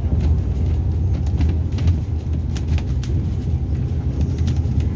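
Steady low rumble of a moving road vehicle heard from inside the cabin: engine and tyre noise at an even pace, with a few faint ticks and rattles.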